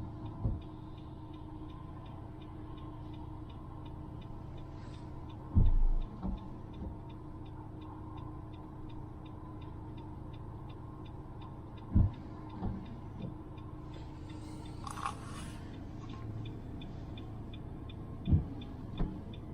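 Inside a running car: a steady low engine-and-road hum with an even, fast ticking over it, and a few loud thumps about six, twelve and eighteen seconds in.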